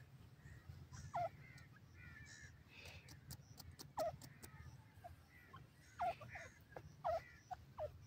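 Grey francolin (teetar) giving short, soft falling call notes, four louder ones spaced about a second or two apart with fainter chirps between. A few sharp clicks come near the middle.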